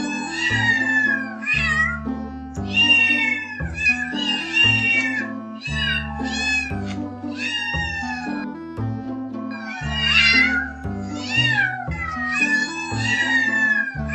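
Domestic cat meowing over and over, about twenty short calls that rise and fall in pitch, over background music with steady low notes.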